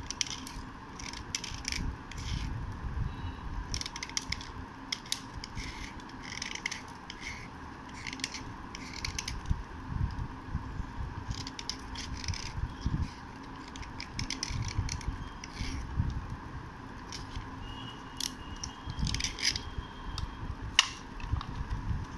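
A white slate pencil scraped by hand with a flat edge: dry, short scratching strokes in quick irregular runs as chalky flakes chip off, with light knocks from handling.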